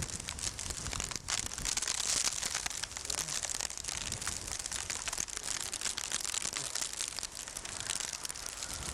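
Sleet pellets ticking against the camcorder in a dense, steady crackle, with wind buffeting the microphone.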